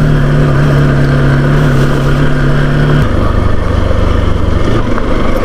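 Engine of a moving road vehicle running steadily on a rough track, its pitch dropping noticeably about three seconds in.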